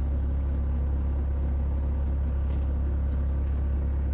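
Steady low engine drone at an unchanging level.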